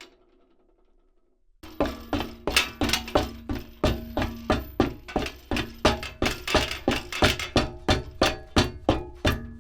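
Footsteps on a metal grate: a steady run of footfalls, about two to three a second, each with a short metallic ring. They start about a second and a half in, after the last ring of an earlier step dies away.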